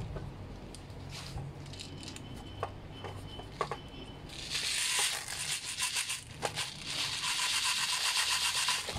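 Plastic airsoft BBs poured from a squeeze bottle into an airsoft gun magazine: a few scattered clicks at first, then from about halfway a dense rattle of many small pellets running in.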